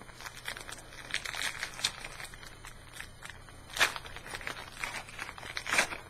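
Foil trading-card pack wrapper being torn open and crinkled in the hands: a run of sharp crackles, the loudest about four seconds in and again near the end.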